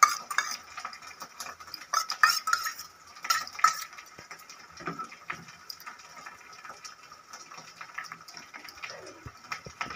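A metal spoon scraping and knocking against a small steel bowl, with short ringing clinks: the loudest is right at the start, then more at about two and three and a half seconds. After that come softer scrapes and clicks as the spoon works through raw crab pieces in a mixing bowl.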